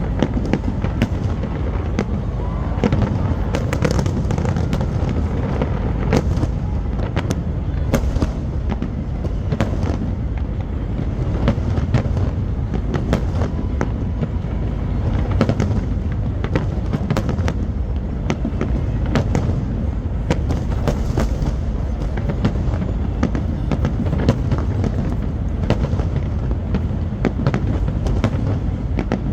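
Fireworks display going off continuously: a dense rolling rumble of booms with many sharp cracks and crackles over it.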